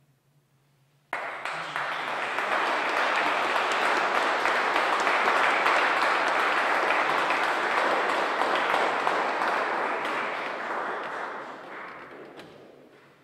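Audience applauding, starting suddenly about a second in after a song ends, then dying away near the end.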